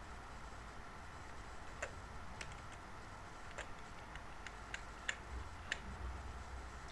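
Computer keyboard keystrokes: about eight separate, unhurried key clicks spread over a few seconds, over a faint steady hum.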